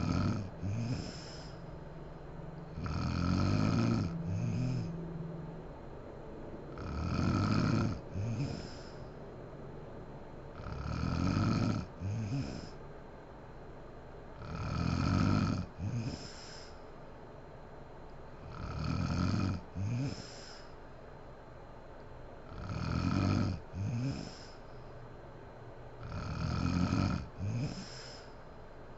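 Sleeping woman snoring, one long snore about every four seconds, each followed at once by a shorter second snort.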